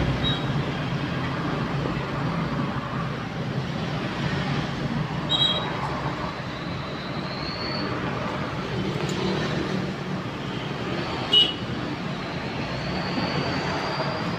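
Steady traffic noise from a nearby road, with a brief sharp click about eleven seconds in.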